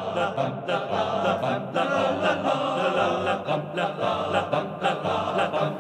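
Music with several voices singing together in a chant-like style.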